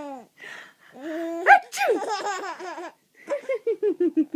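A baby laughing: giggles and laughs, ending in a run of quick rhythmic chuckles. The laughter answers a woman's playful mock sneeze about a second and a half in.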